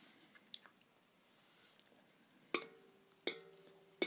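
Metal fork clinking against a dish three times in the second half, each clink leaving a short ring, with a fainter tap about half a second in.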